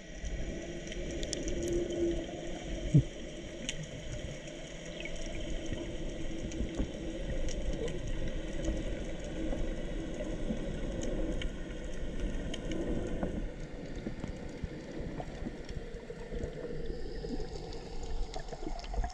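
Underwater ambience picked up by an action camera in its waterproof housing: a muffled, steady wash of water noise with a faint hum and scattered small clicks and crackles, and one sharper pop about three seconds in.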